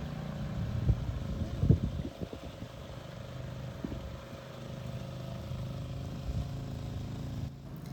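An engine running low and steady, with a few knocks about one and two seconds in.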